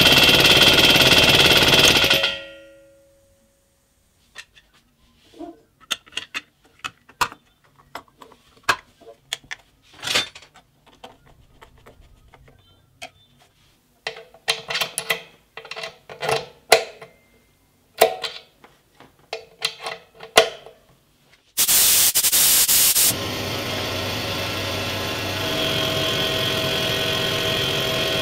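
Restored 1969 Iwata Minicom piston air compressor running, then stopping about two seconds in. Scattered clicks and metal clatter of an air fitting being worked in a quick-connect coupler follow, then a short loud hiss of air about 22 seconds in. The compressor then starts again and runs steadily.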